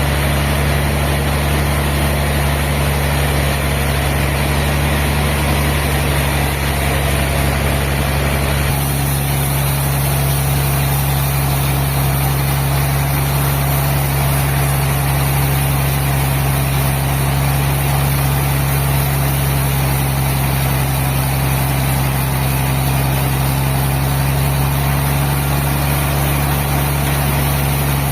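Sawmill machinery running steadily: a loud, constant low hum under dense mechanical noise, with a slight shift in the sound about nine seconds in.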